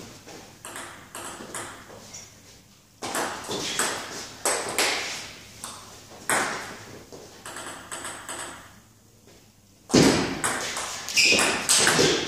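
Table tennis rally: the ball clicking off the players' rubber-faced bats and the table top in a quick, uneven rhythm. There is a short pause about nine seconds in, then a louder, faster run of hits near the end.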